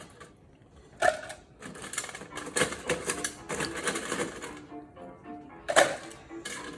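Ice cubes clattering and clinking into a drinking glass as it is filled, a run of rapid clinks through the first few seconds and one more sharp knock near the end. Quiet background music joins in during the second half.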